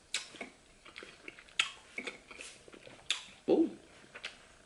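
A person chewing food close to the microphone, with sharp wet mouth clicks about every second and a half and smaller ticks between; a short spoken "Oh" near the end.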